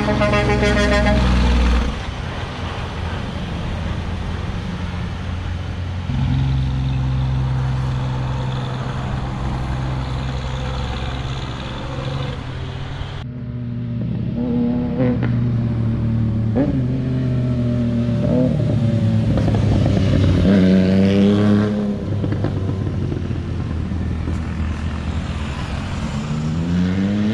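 Heavy diesel tractor-trailer engines running under load through a mountain curve, with a steady low engine note for several seconds. Later, vehicle engines rise and fall in pitch as they change gear, and a motorcycle engine rises in pitch as it accelerates near the end.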